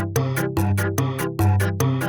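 Electronic music with a steady, fast beat and a synthesizer bass line.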